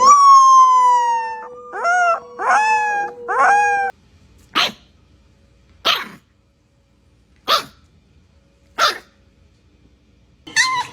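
A dog making high whining calls: one long whine sliding down in pitch, three shorter whines that rise and fall, then four short sharp sounds about a second and a half apart.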